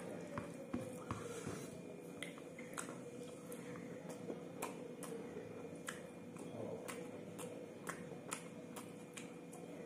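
Close-up eating sounds: wet chewing and lip smacks of rice and beef curry, with fingers squishing and mixing the rice on the plate, heard as many short clicks.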